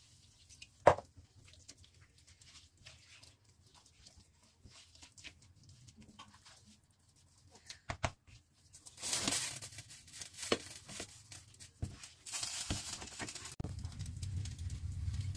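Plastic spatula scraping and tapping in a nonstick frying pan as a thick butter-and-flour roux is stirred and water is added for gravy. A sharp knock comes about a second in, then scattered scrapes and clicks, and two stretches of hissing sizzle in the second half.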